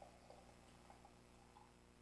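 Faint trickle of hot water poured from a metal jug into a teapot, in near silence.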